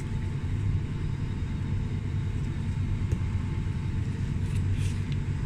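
Steady low rumble of background noise, even in level, with a couple of faint short high-pitched sounds a little before the end.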